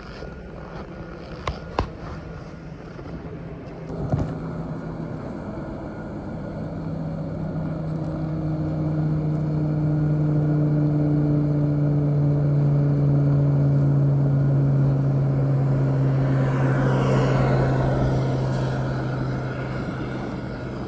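An engine hum passing by: it grows slowly from a few seconds in, holds loudest for several seconds, then fades, with its pitch dropping slightly as it goes past. Two sharp clicks come near the start and a thump about four seconds in.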